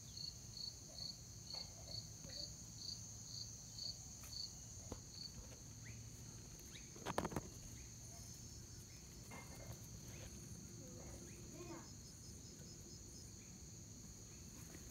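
Night insects calling in grass: a steady high trill under an evenly pulsed cricket chirp, about two or three chirps a second, which stops about five seconds in. A short, louder rustling clatter comes a little past seven seconds in.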